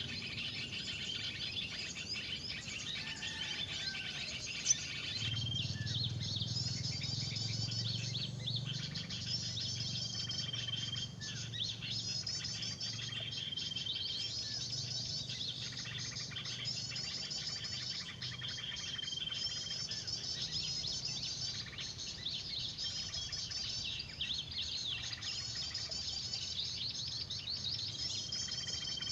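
Busy chirping and twittering of many small birds, typical of a 'noisy birds' lure recording played from a speaker to draw small birds to a bird-lime trap. The chirp phrases repeat in a regular pattern, and a short held whistle comes in four times.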